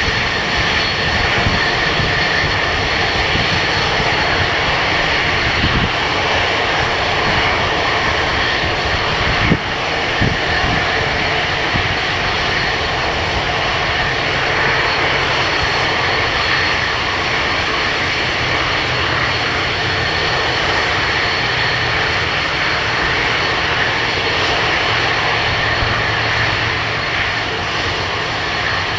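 Airliner engines running with a steady, noisy rush, with a low irregular rumble of wind on the microphone. A single sharp knock about nine and a half seconds in.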